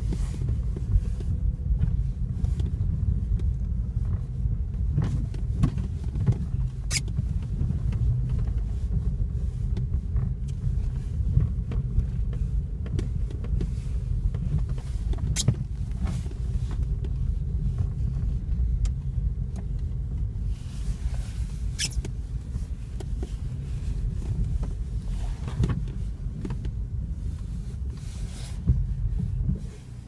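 Inside an Opel car with an Easytronic automated manual gearbox driving on snow: a steady low rumble of engine and tyres, with scattered short clicks and knocks. The rumble drops away sharply near the end as the car comes to a stop and idles.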